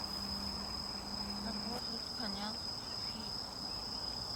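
Crickets singing: a continuous, steady high-pitched trill.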